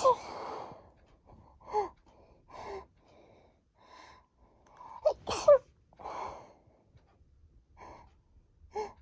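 A person sneezing. One sneeze ends right at the start, then come a few short gasping in-breaths, building to a loud sneeze about five seconds in, followed by breathing and more short gasps.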